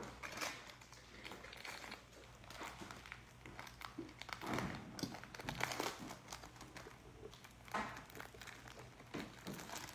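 Clear plastic wrapper of a basketball card pack crinkling as gloved hands unwrap it and slide the cards out, in faint, irregular crackles with a few louder crinkles.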